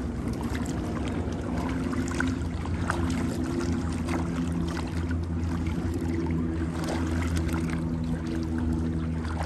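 A small engine running at a steady speed, with water noise and light knocks over it.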